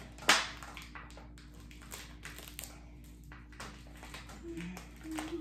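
Duct tape being unwound off the roll and wrapped around the joined necks of two plastic bottles: a sharp knock near the start, then a run of small crackling clicks.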